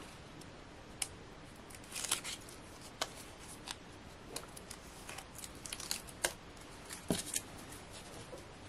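Paper and card pieces being handled by hand: faint scattered clicks and a few short rustles, about two seconds in, around six seconds and again a second later.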